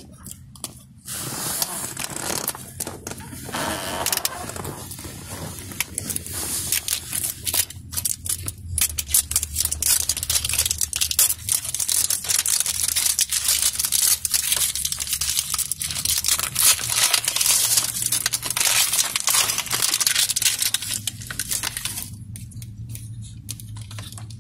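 Clear plastic wrapping being torn and crumpled off a toy's round plastic case: a long run of crackling and crinkling full of sharp little clicks, which dies down near the end.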